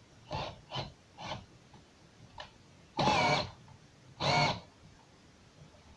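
Cordless drill-driver turning a thread tap into a metal part in short trigger bursts: three brief ones in the first second and a half, then two longer, louder runs about three and four seconds in, their pitch wavering under load. The tap is cutting slowly.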